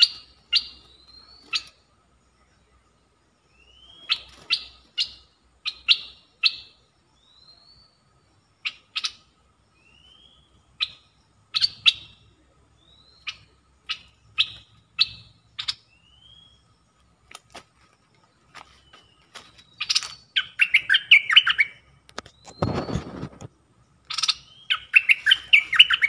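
Caged decoy bulbul (nok dok taeng) calling: a run of short sharp chirps and upward-slurred whistled notes, then twice a longer, rapid warbling phrase near the end. A brief low thump comes just before the second phrase.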